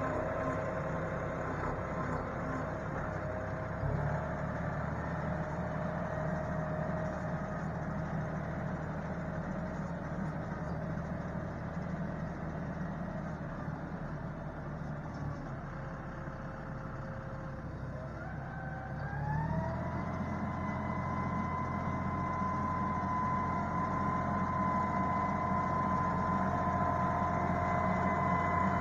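John Deere utility tractor's diesel engine running under load as it pulls a rear box blade, with a whine riding on it. About two-thirds of the way through the engine speeds up and the whine rises in pitch, and the sound grows louder near the end as the tractor comes closer.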